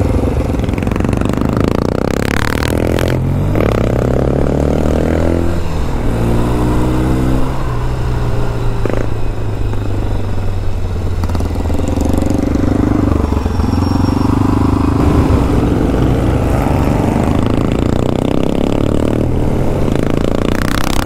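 Motorcycle engine revving, its pitch rising and falling a few times in the first six seconds, then settling into a steady run.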